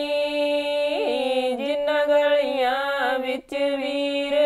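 Women singing a Punjabi folk wedding song (lok geet) with no accompaniment, drawing out a long held note with slow bends in pitch. The note breaks briefly for a breath about three and a half seconds in, then resumes.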